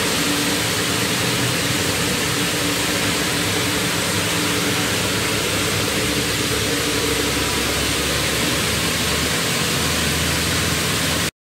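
Steady industrial machinery noise: an even, loud hiss with a low hum running under it. It cuts off abruptly near the end.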